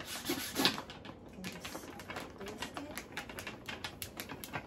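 Clear plastic vacuum storage bag crinkling with many irregular small clicks as a white hand pump is pressed and worked on its valve, with a louder cluster of crackles about half a second in.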